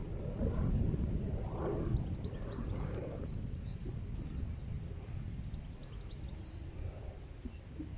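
Wind rumbling on the microphone, with a small songbird singing twice, each phrase a quick run of high notes ending in a falling whistle.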